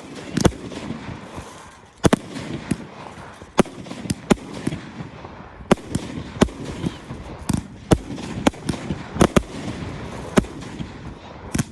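Fireworks display: a dozen or so sharp bangs of exploding shells at irregular intervals, some coming in quick pairs, with continuous crackle and rumble between them.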